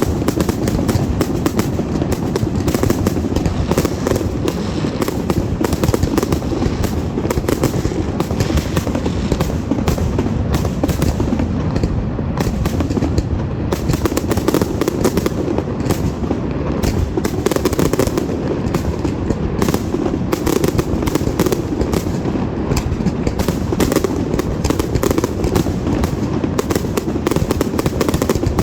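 Fireworks going off in a dense, continuous barrage of overlapping bangs and crackles, with no pause between bursts.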